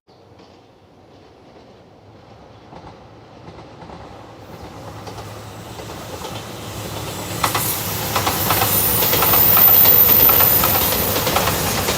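A passenger train approaching and running past close by, growing steadily louder. From about halfway through there is the rhythmic clickety-clack of its wheels over the rail joints, loudest near the end.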